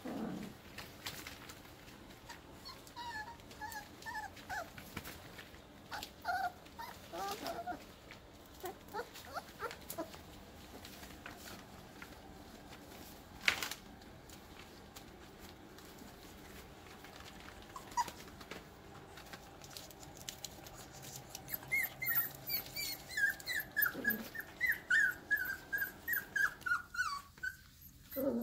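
Five-week-old Airedale Terrier puppies playing and wrestling, giving short high-pitched whimpers and squeals in scattered bunches, then a rapid run of them over the last several seconds. A single sharp knock sounds about halfway through.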